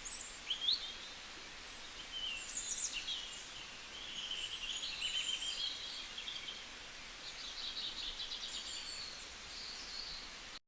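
Several songbirds chirping and trilling, overlapping short calls and quick rattling trills, over a steady background hiss; the sound cuts off suddenly near the end.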